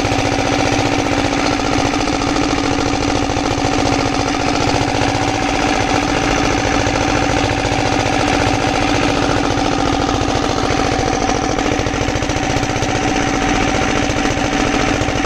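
Comet 5 hp single-cylinder diesel engine running steadily with a rapid, even knocking beat. Its fuel-injection pump timing has just been reset with four extra shims.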